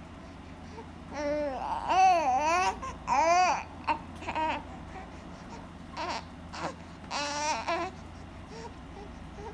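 A young infant cooing and babbling: a run of short, high, rising-and-falling vocal sounds. The loudest come between about one and four seconds in, followed by a few quieter ones.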